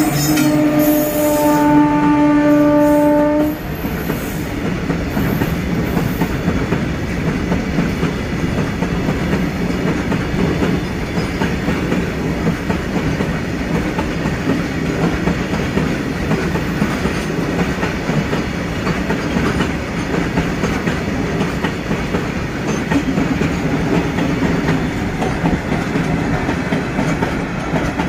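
Electric locomotive horn sounding for about the first three and a half seconds, then cutting off. After it, the steady rumble and clickety-clack of a freight train's loaded flat wagons rolling past over the rail joints.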